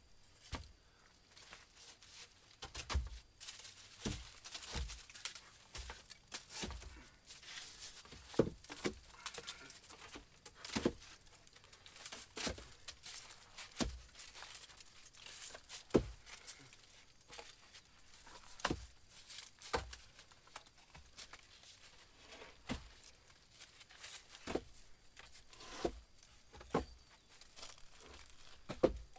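Dry leaf litter and twigs rustling and crinkling, with many irregular sharp snaps and crackles.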